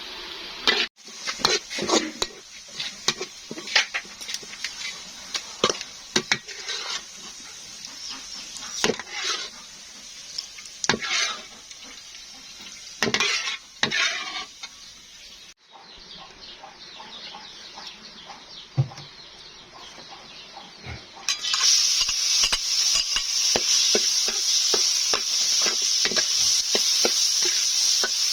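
Cooking sounds: metal utensils clinking and scraping against a pot or pan in short strokes, then, about three quarters of the way through, a steady loud sizzle of food frying.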